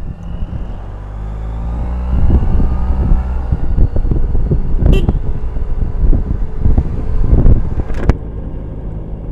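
Suzuki Burgman 650 maxi-scooter's parallel-twin engine running under way, its note rising over the first few seconds, with wind buffeting the helmet-mounted microphone. Two sharp knocks sound about five and eight seconds in.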